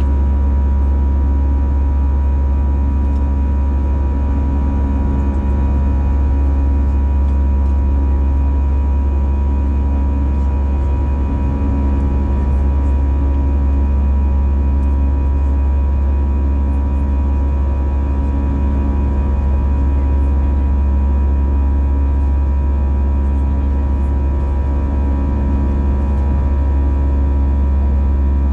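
Steady cabin drone of an Airbus A320 climbing out after takeoff, heard from inside the cabin by the wing-mounted engine: a deep, even rumble of engine and airflow with a steady hum over it.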